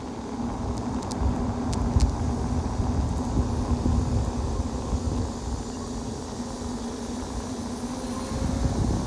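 Rumble of riding an e-bike on a paved road: low wind buffeting and tyre noise with a steady low hum under it, and a few light clicks about two seconds in.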